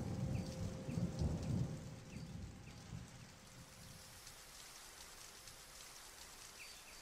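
A roll of thunder that rumbles deep and fades out over about three seconds, over steady rain. The rain carries on alone with a faint hiss and scattered drips.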